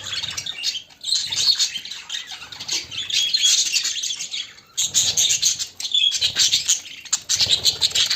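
Budgerigars chattering and warbling, a dense run of fast chirps with two short lulls.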